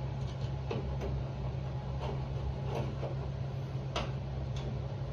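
Hand screwdriver turning long screws into a door handle's mounting bolts, giving scattered sharp clicks at uneven intervals. A steady low hum runs underneath.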